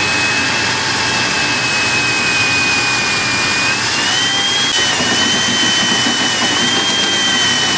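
Cordless drill running a step bit through the sheet-metal fender of a pickup truck, enlarging a pilot hole: a steady motor whine over the cutting noise, rising a little in pitch about four seconds in.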